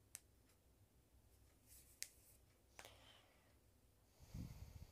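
Near silence: room tone with a few faint, sharp clicks as a wooden stirring stick touches a ceramic bowl of water, and a short, soft low sound near the end.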